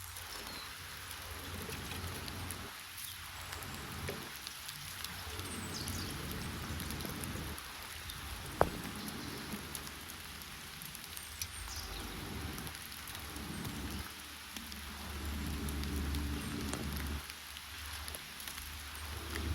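Campfire burning, crackling and popping over a steady hiss and a low, swelling rumble, with one sharp loud pop about eight and a half seconds in.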